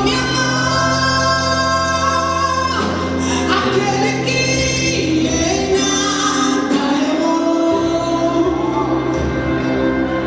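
Live gospel song: a band with keyboard and bass accompanies a female lead voice and backing singers, held sung notes over steady chords.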